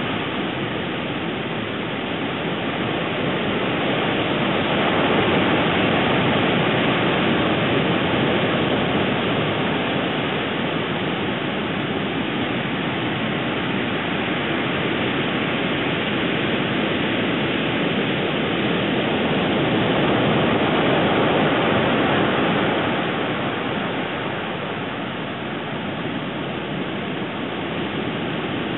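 Steady rushing noise with no distinct events. It swells slightly about five seconds in and again around twenty seconds, with a faint steady high tone underneath.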